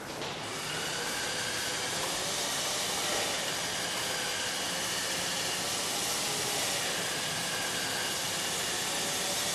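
Steady hissing from the robot's leg-extending mechanism, starting just after the beginning, as its telescoping legs slowly push its body upward.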